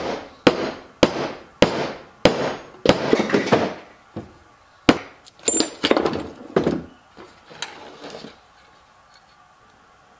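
A mallet striking the aluminium crankcase cover of an 18 hp Briggs & Stratton engine to drive a seal into the bearing bore. It gives a run of sharp knocks about every half second, then a looser, irregular group, stopping around eight seconds in.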